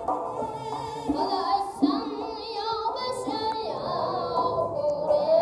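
Live traditional Uzbek music: a doira frame drum struck now and then under a wavering melody line with vibrato.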